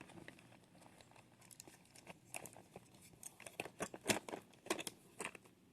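Faint, irregular clicks and rustles of small items being handled and packed into a handbag, busier after about two seconds.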